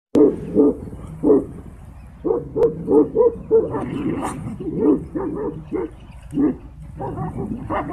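Tibetan mastiff barking repeatedly, short barks coming in quick runs of two or three a second.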